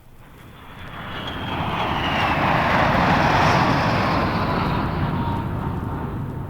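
Aircraft flying past as a stereo sound effect: a rushing engine noise that swells over about two seconds, peaks midway and slowly fades, with a whine falling in pitch as it goes by.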